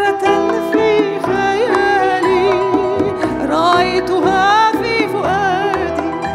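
Soprano singing in an operatic style, her held notes wavering with a wide vibrato, over a steady instrumental accompaniment.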